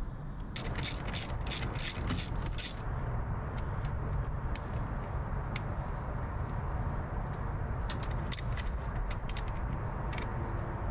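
Socket ratchet clicking in a quick run of about seven clicks near the start and a few more near the end, as the nut on the truck battery's positive terminal is loosened, over a steady low rumble.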